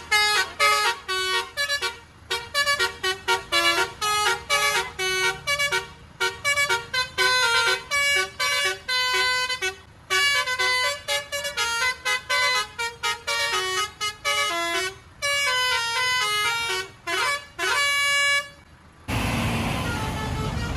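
Bus 'telolet basuri' musical horn playing a fast melody of short, high horn notes in quick phrases. About a second before the end it gives way suddenly to a steady rushing noise.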